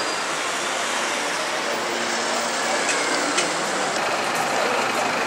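Busy city road traffic passing close: cars, a black cab and a red double-decker bus driving by, with steady engine and tyre noise.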